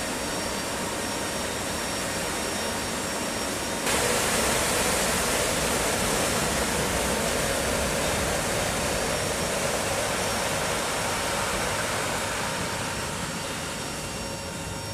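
Inside a C-130 Hercules cargo hold in flight with the rear ramp open: steady rushing wind over the drone of its four turboprop engines, with a few faint steady tones. The rush turns suddenly louder and brighter about four seconds in, then eases off toward the end.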